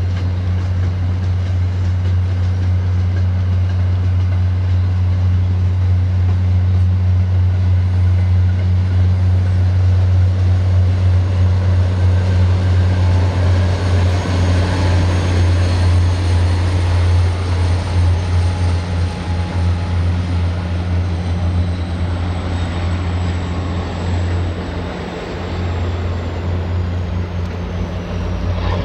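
MBTA commuter rail diesel locomotive running with a steady, deep engine drone that swells toward the middle and eases off later. A thin high whine slides down in pitch near the end.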